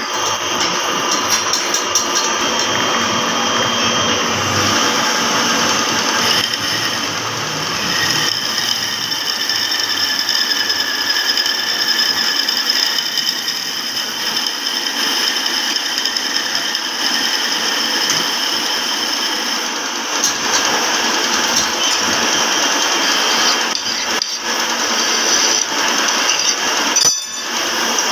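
A power tool running steadily while working a metal motorcycle front-shock rod, with a brief dip near the end.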